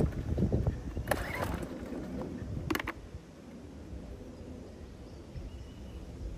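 Recoil pull-start cord of a small Sportsman 1000-watt inverter generator being yanked, the engine turning over in the first second and a half without catching, then a single click near 3 s and quiet. It won't fire because the generator's on switch was left off.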